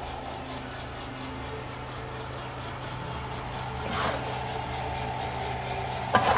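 Coffed SRE 500 electric coffee sample roaster running with a steady hum. About four seconds in there is a short scraping swell, and near the end a few sharp metal clacks as the chaff tray drawer under the machine is pulled out.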